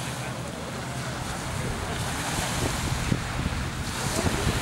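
Small waves breaking and washing over a pebbly shore, with wind buffeting the microphone more strongly from about a second in.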